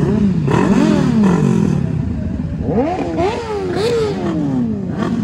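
Several sport motorcycle engines revved while standing, their throttle blips overlapping so the pitch keeps rising and falling, with a cluster of quick revs about three seconds in.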